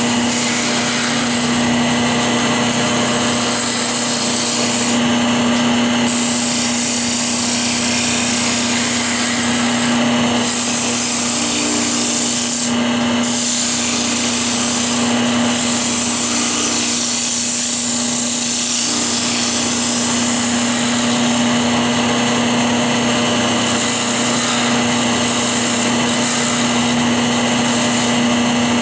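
Wood lathe spinning a hammer-handle hickory cup blank while a hand-held turning tool hollows out its inside: a continuous rough scraping of the tool cutting the hard wood over a steady hum.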